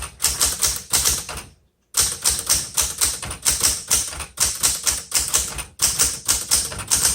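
Typing on a Smith Corona Galaxie II manual typewriter: its typebars strike the platen in a steady run of sharp clacks, about three to four a second, with a brief pause about two seconds in.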